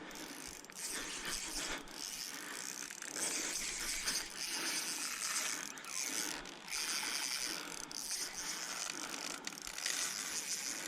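Shimano Vanford spinning reel working against a heavy hooked fish, a continuous mechanical ticking and whirring of the reel's gears and drag as line is fought.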